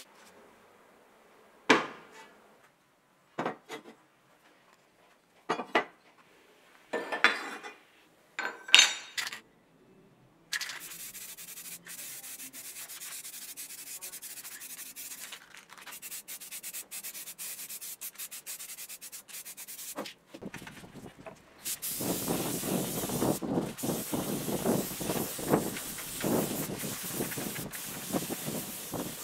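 Spray painting the cut-off saw's steel base plate. First come several short bursts of spray, then about ten seconds of steady hissing. Near the end there is a louder, rougher hiss.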